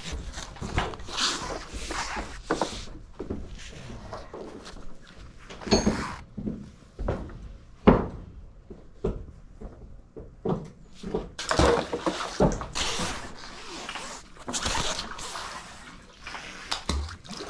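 Irregular knocks, scuffs and rustling from handling a magnet-fishing rope and shifting on wooden dock planks, close to the microphone, with one sharp knock about eight seconds in.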